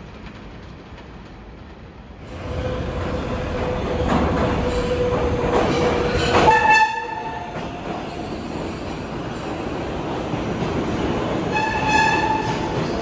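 An R188 subway train pulling into an underground station, its rumble and wheel noise building after a sudden jump in loudness a couple of seconds in. The horn sounds two short blasts, one about halfway through and a slightly longer one near the end as the train passes close by.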